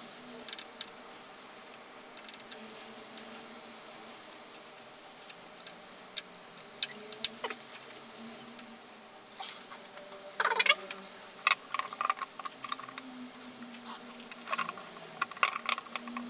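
Hands handling electrical wiring and a plastic junction box: scattered small clicks, taps and rustles, with a cluster of sharper clicks about seven seconds in and again around ten seconds.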